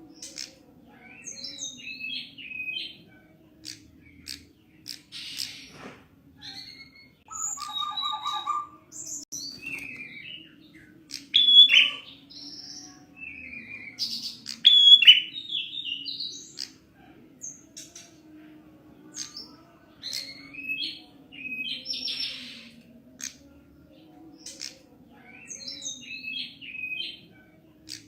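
Prinia (prenjak) giving its 'tilek-tilek' call: short, sharp chirped phrases repeated every second or two, some much louder than others. A faint low hum runs underneath.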